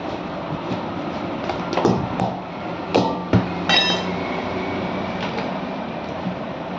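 A few sharp metal knocks from a steel tyre iron against a steel wheel rim and the concrete floor, ending in a ringing metallic clink about four seconds in, over a steady low hum.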